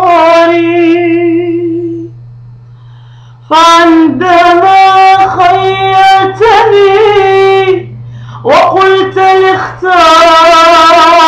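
A woman singing in long held, wavering notes with melodic turns, pausing briefly about two seconds in and again near eight seconds; a steady low hum runs underneath.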